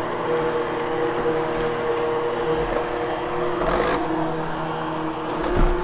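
Vacuum cleaner running steadily over a freshly cleaned carpet with a constant motor hum and airflow hiss, grooming the lifted pile. The hiss swells briefly about four seconds in.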